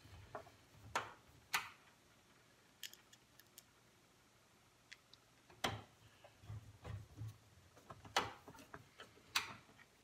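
Screws being driven by hand with a screwdriver to fasten a power supply to a steel PC case's rear panel: faint, scattered metallic clicks and ticks, with a few soft knocks in the middle.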